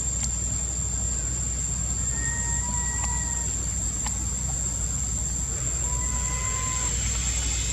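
Steady outdoor ambience: a constant low rumble and hiss with an unbroken high whine over it. Two faint drawn-out calls of even pitch, each about a second long, come about two and six seconds in, with a few faint clicks.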